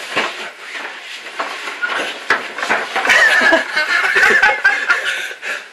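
A man laughing loudly and breathlessly, hardest from about three seconds in for two seconds, inside a cramped plywood maze. Knocks and bumps sound throughout as he and the handheld camera scrape and bump against the plywood panels.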